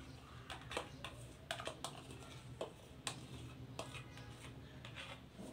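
Faint, irregular light clicks and taps of a spoon scraping garlic sauce out of a small bowl into a steel mixing bowl.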